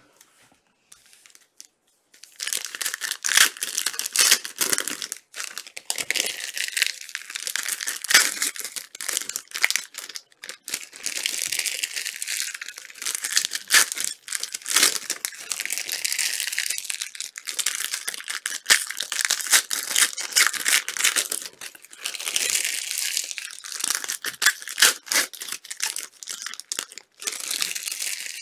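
Foil wrappers of Topps Chrome trading card packs being torn open and crinkled one after another: continuous crisp crackling with many sharp ticks, starting about two seconds in.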